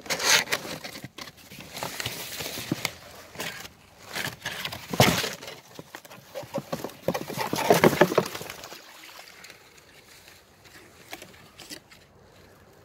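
Cardboard box being opened and tipped by hand: irregular rustling, scraping and knocks of the cardboard, with a loud knock about five seconds in and a dense clatter around eight seconds, then dying away after about nine seconds.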